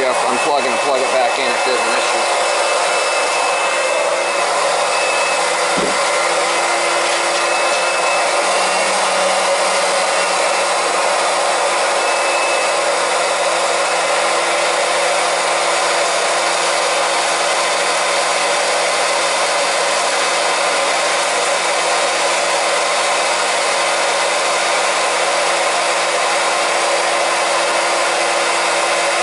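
Small electric transfer pump running steadily, pushing propylene glycol antifreeze from a bucket through a hot-water heating zone and back out a return hose to flush the air out. A single knock sounds about six seconds in.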